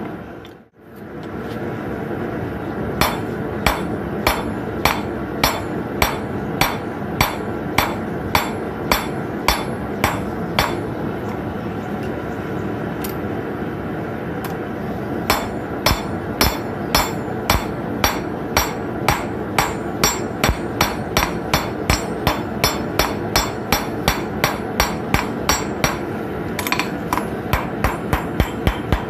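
Ball-peen hammer striking a red-hot steel nail on an anvil as it is forged flat into a letter-opener blade: sharp blows at about two a second, a pause of a few seconds in the middle, then a long steady run of blows.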